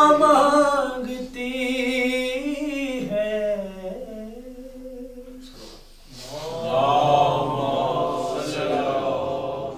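A man reciting a salaam, a Shia devotional elegy, singing unaccompanied in long held, wavering notes. One phrase dies away about six seconds in and the next begins at once.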